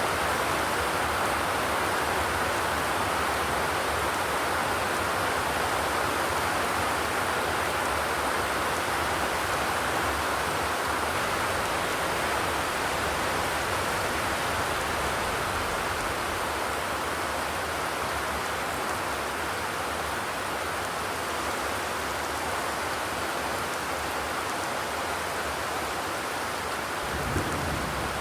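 Steady rain falling on a zinc roof, an even hiss. A brief low thump sounds near the end.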